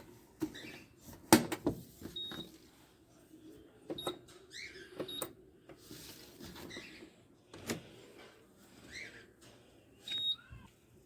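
Scattered clicks and knocks with several short high electronic beeps, like buttons being pressed on a washing machine's control panel, with a few faint chirps in between.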